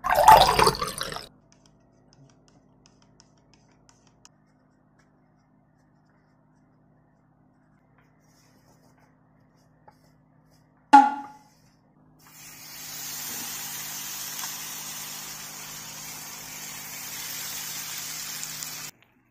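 Takoyaki batter sizzling steadily in the hot cells of an electric takoyaki pan for about six seconds, cutting off suddenly near the end. Before it, water is poured into a bowl of flour and egg in a short loud burst at the start, and there is a sharp clink with a brief ring about eleven seconds in.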